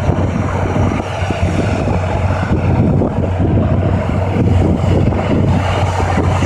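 Hürlimann Master 165 hp tractor's diesel engine running steadily under load as it pulls a four-furrow plough, with wind rumbling on the microphone.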